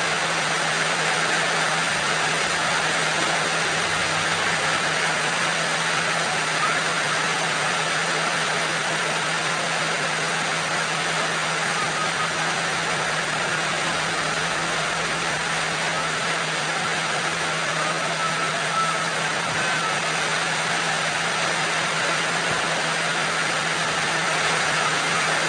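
Steady rain falling, an even hiss that holds at the same level throughout, with a faint low steady hum underneath.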